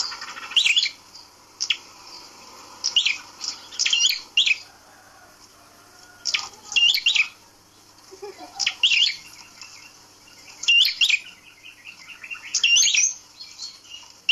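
A prenjak kepala merah, a small prinia-like songbird, calling: short bursts of sharp, quickly swooping high notes, repeated every second or two.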